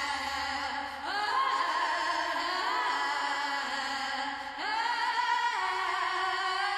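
Drumless breakdown of an early-1990s electronic dance track: held, voice-like notes stacked in chords, sliding up into new pitches about a second in and again near five seconds.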